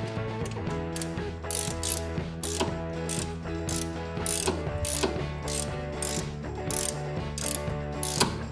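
Socket ratchet clicking in repeated back-and-forth strokes, about one every half second, backing out the bolts that hold a front wheel hub assembly.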